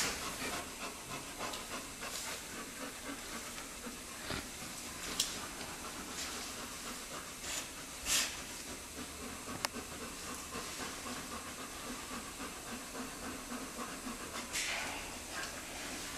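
Sun bears panting hard while lying down, worn out after a long play fight. A few short scuffs and clicks break through.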